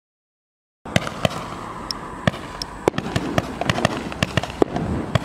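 Silence, then just under a second in a Boomwow BW2307A HD White 80-shot firework tube starts firing: sharp shots about three a second over a steady hiss.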